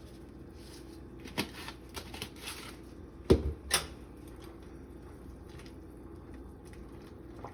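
Kitchen clatter of utensils and containers being handled at a cooking pot: a few light clicks and knocks, with one louder knock a little over three seconds in, over a faint steady hum.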